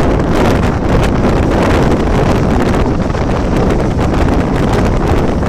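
Loud, steady wind buffeting the microphone held outside a moving Mumbai local electric train, mixed with the train's running noise on the track.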